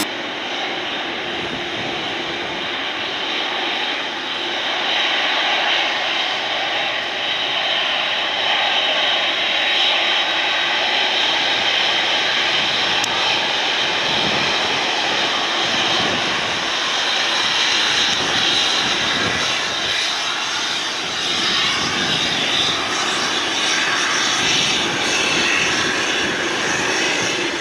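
The four GEnx turbofans of a Boeing 747-8 freighter running as it rolls past on the ground: a steady loud rush with almost no metallic whine.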